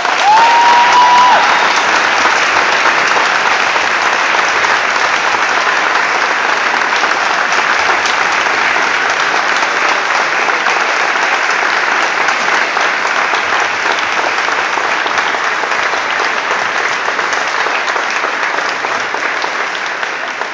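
Large audience giving a standing ovation: steady clapping for about twenty seconds, with one brief high note from someone in the crowd at the start.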